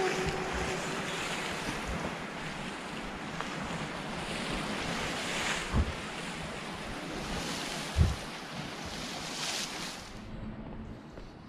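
Sea surf washing in and out, swelling and ebbing about every two seconds, with wind on the microphone and two low thumps about six and eight seconds in. It grows quieter near the end.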